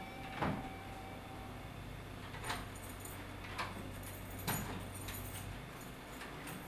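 Keys clinking at a door lock, in four separate metallic clinks spread over a few seconds, over a low steady hum.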